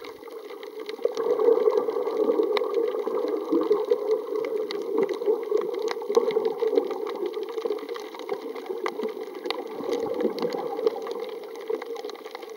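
Muffled underwater noise picked up through a camera's waterproof housing: a steady water rush with many scattered sharp clicks and crackles.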